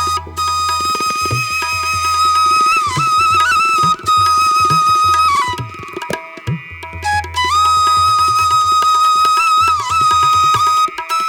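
Background music: a flute-like melody of long held notes with slight bends, over hand-drum percussion in a tabla style.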